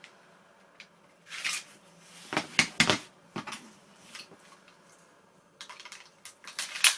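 ASG replica Ruger airsoft pistols being handled: a brief rustle, then scattered light clicks and knocks, a quick run of small clicks near the end and a sharper click at the very end.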